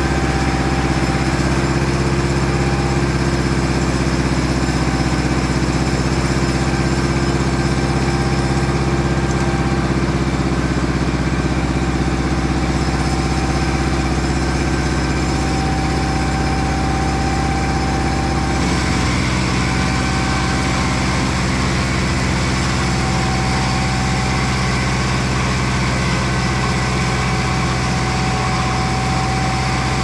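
The engine of a Mobile Dimension portable sawmill running steadily. About two-thirds of the way through, its note changes slightly.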